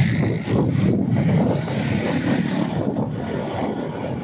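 Ride noise from a motorcycle moving along a city street: an irregular low rumble of wind and road noise, with no clear engine pitch.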